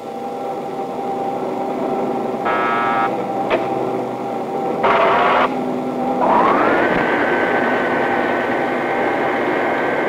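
Punched-tape-controlled drilling machine running with a steady hum and whine. It gives two short buzzes and a sharp click in the first half, then its spindle spins up about six seconds in to a higher whine that holds.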